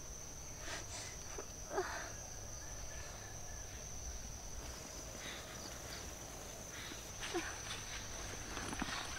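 Crickets droning steadily at a high pitch, with soft rustles of leaves and undergrowth and a couple of short chirps, the loudest about two seconds in.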